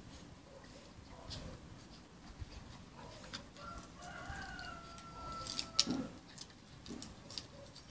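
One drawn-out animal call about two seconds long, rising at first and then holding a steady pitch, heard through light scuffing and clicking as puppies play on paving, with a sharper knock just after it ends.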